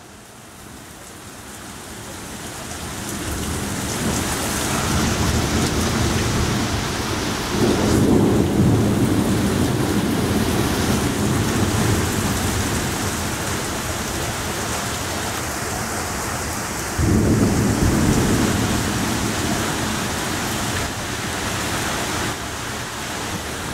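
Torrential rain pouring steadily while thunder rumbles, building over the first few seconds. Two sharp, loud claps of thunder come about eight and seventeen seconds in, each rolling off.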